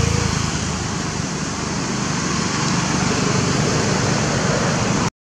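Steady rushing outdoor background noise with no distinct call or voice, cutting off abruptly near the end.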